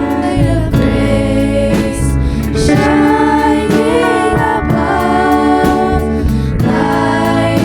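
Choir singing a Christian worship song, held sung notes over steady keyboard accompaniment.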